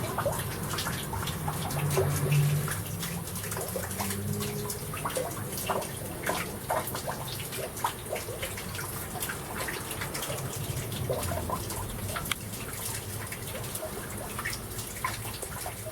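Water dripping and splashing in many small, irregular drops in a flooded room, over a low steady hum.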